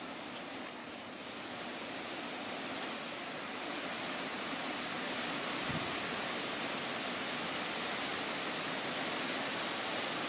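Steady rushing outdoor background noise with no distinct events, slowly growing a little louder, and a single faint low knock about halfway through.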